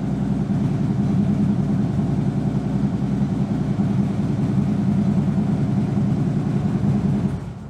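Harley-Davidson Road King's V-twin engine idling steadily with a low, fast-pulsing rumble, running so the alternator can be tested; it falls away near the end.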